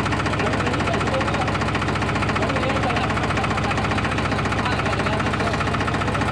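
Tractor engine running steadily at a constant speed, with a rapid, even firing rhythm and no revving.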